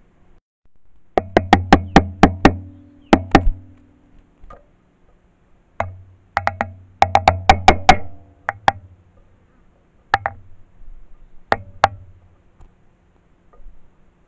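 Bursts of sharp, hard clacks and knocks, several a second in groups with pauses between, from a wild goat's hooves on the stones very close by.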